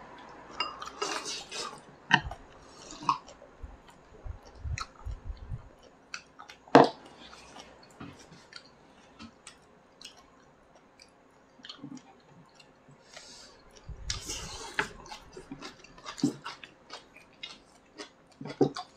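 Eating at a table: chewing and sipping from a soup bowl, with small clicks of chopsticks against ceramic bowls. One sharper knock comes about seven seconds in.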